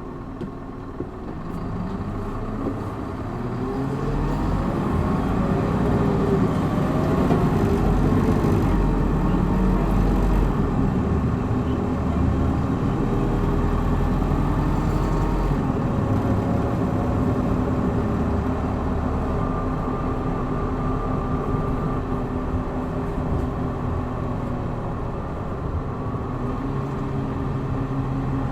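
Hino Blue Ribbon city bus, model QPG-KV290Q1, accelerating hard in power mode. The engine note climbs and shifts in pitch through the first half, then settles into a steady cruise, with road and tyre noise underneath.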